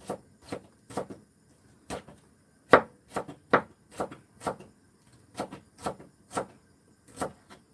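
Kitchen knife chopping green onions on a wooden cutting board: about fifteen sharp knocks, unevenly spaced at roughly two a second, the loudest a little under three seconds in.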